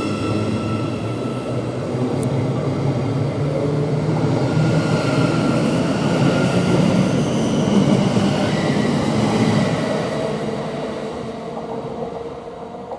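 Thameslink Class 700 electric multiple unit pulling away from the platform: its traction motors whine over the rumble of the wheels on the rails. The sound builds and then fades away over the last few seconds as the train leaves.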